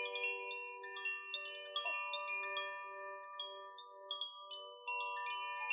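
Chimes gently rung for sound healing: bright, ringing notes set off at irregular moments that ring on and overlap, over a lower tone that pulses slowly.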